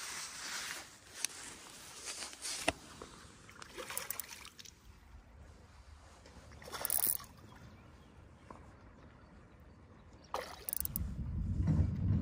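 River water sloshing and splashing, with a few short splashes or handling knocks, while a fish is played on a bent ultralight spinning rod. Near the end, wind starts buffeting the microphone with a low rumble.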